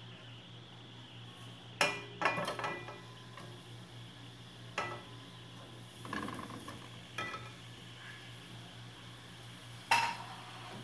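Sliced red onions dropping into hot oil in a pot and being stirred with a silicone spatula: several knocks and clinks against the pot at irregular intervals, the sharpest near the end, over a faint sizzle.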